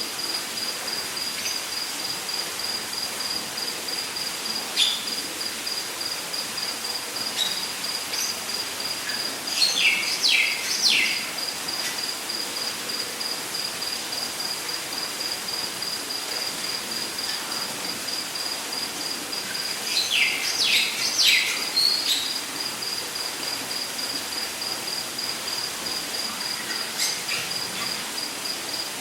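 Rainforest ambience: an insect trills steadily on one high note throughout, while a bird twice gives a run of three or four quick downward-sweeping calls, with a few short chirps between.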